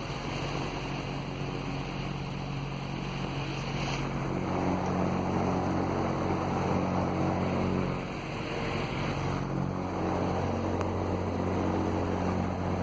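Emerson pedestal fan running on low speed close up: a steady motor hum under the rush of air from the blades.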